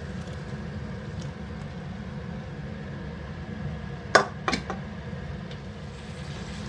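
Cauliflower florets and par-cooked potatoes being added to a pan of masala. About four seconds in there are two sharp knocks of a utensil or bowl against the pan, over a steady low hum.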